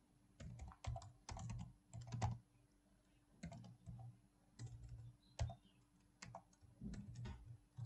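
Typing on a computer keyboard: short runs of keystrokes in bursts, with brief pauses between them.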